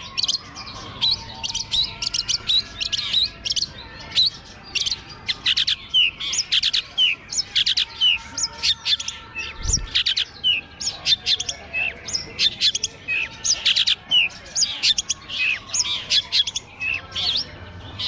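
Long-tailed shrikes (cendet) singing together from their cages: a dense run of sharp, loud chirps and short rising and falling whistles, several a second without a break.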